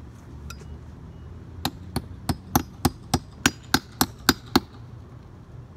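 Hammer striking at the wall of a house's gable: a run of about eleven quick, evenly spaced blows, roughly three a second, starting about a second and a half in.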